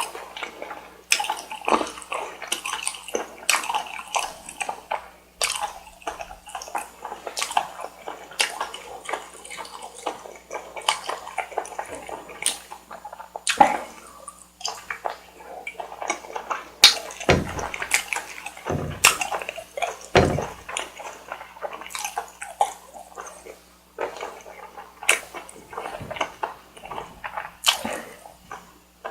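Close-miked ASMR eating sounds: a steady run of wet chewing, sticky mouth clicks and lip smacks, with three heavier, deeper thuds about two-thirds of the way through.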